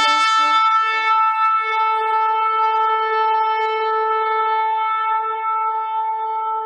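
A shofar blown in one long, steady blast, with a weaker lower tone under it for about the first second.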